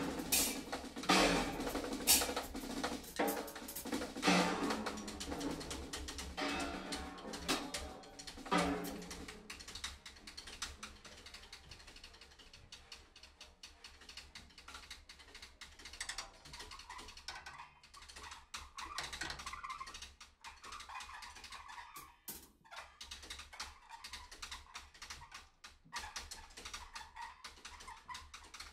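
Free-improvised drum-kit playing: heavy single strikes about once a second for the first third, then it drops to quiet, dense light tapping.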